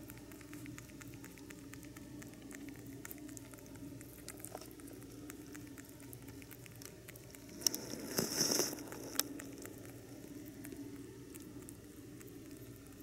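Pet rabbit chewing soft, juicy peach from a saucer: quick wet clicks of chewing at several a second. About two-thirds of the way through, a louder scuffing burst lasting a second or so.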